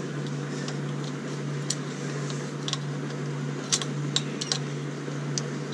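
A fan hums steadily in the background while hand tools make a few scattered sharp metal clicks and taps, working the intake fasteners on a Honda B20 engine.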